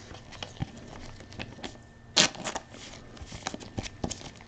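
Trading cards and their packaging being handled: quiet scattered clicks and crinkles, with a louder rustle about two seconds in.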